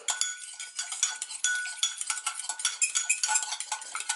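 A metal fork beating a raw egg in a ceramic mug: rapid clinks of the tines against the inside of the mug, with the mug ringing under the strokes.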